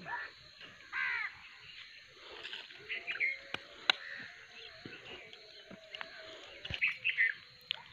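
Crows cawing: one call about a second in, then more around three seconds and near the end, with a few sharp clicks between them.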